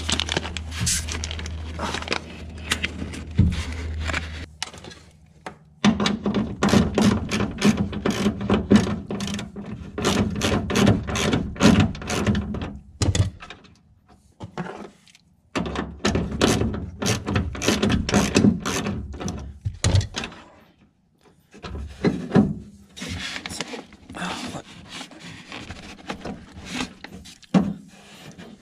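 Repeated clicking, knocking and rubbing of the window glass and regulator parts being worked by hand inside a Honda Civic door, in three bursts with short pauses between them. A low steady hum runs under the first four seconds.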